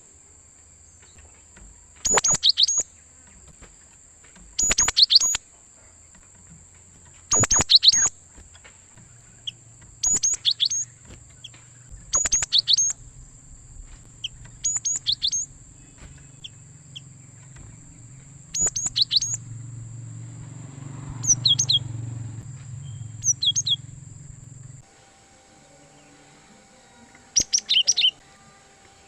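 Cinereous tit (gelatik batu) singing: short phrases of a few rapid, high, downslurred notes, repeated about every two and a half seconds.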